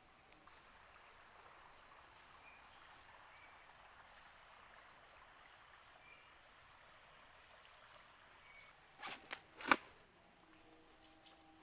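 Faint insect chirping over quiet outdoor background. About nine seconds in come three sharp clicks or knocks in quick succession, the last the loudest.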